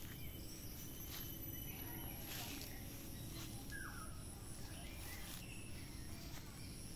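Outdoor ambience: a steady high insect drone, with a few short bird chirps and one brief falling call about halfway through, over a low steady rumble.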